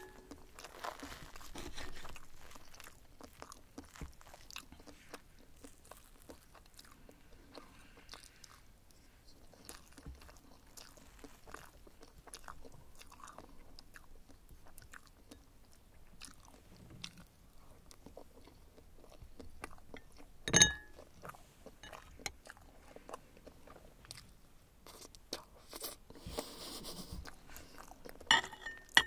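Quiet chewing of soft omelette, with light clicks of a knife and wooden fork working on a ceramic plate. There is one sharp clink of the knife on the plate about two-thirds of the way through, and another near the end.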